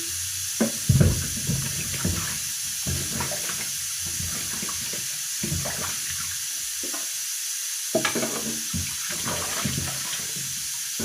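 Produce being washed by hand in a kitchen sink of water: irregular splashes and knocks over a steady hiss, the loudest knock about a second in.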